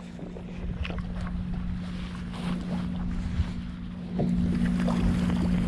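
A boat motor running with a steady hum, louder from about four seconds in, over wind noise on the microphone.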